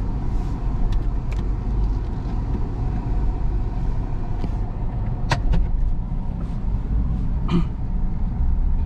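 Buick Rainier SUV driving, heard from inside the cabin: a steady low rumble of engine and road noise, with a sharp click about five seconds in and another a couple of seconds later.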